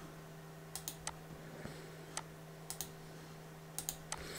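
Computer mouse clicking: a few short, sharp clicks, some in quick pairs, over a faint steady low hum.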